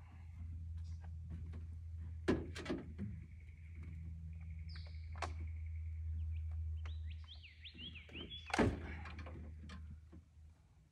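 Compact tractor engine idling with a low steady hum. A few sharp knocks come about two seconds in and a louder one near nine seconds, and birds chirp, with a quick run of rising notes shortly before the louder knock.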